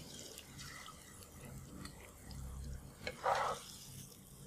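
Wooden spatula lifting sticky braised pork belly and eggs out of a frying pan onto a plate: light taps and wet, sticky sounds of the sauce, with a brief louder scrape about three seconds in.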